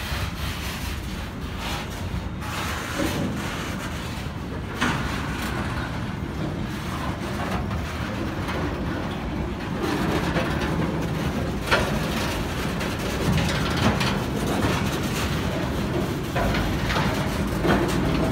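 Freight train wagons and tank cars rolling past, their wheels giving a steady low rumble on the rails, with sharp clanks and squeaks every few seconds. It grows louder about halfway through, as the tank cars come close.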